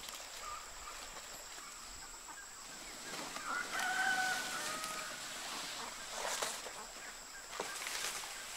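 A rooster crowing once, one drawn-out call starting about three and a half seconds in, over a steady high hiss.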